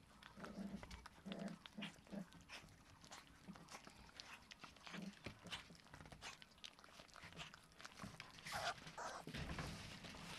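Rottweiler puppies chewing raw chicken: faint wet smacking and crunching clicks, with a few short low growls. A louder scuffling burst comes about eight and a half seconds in.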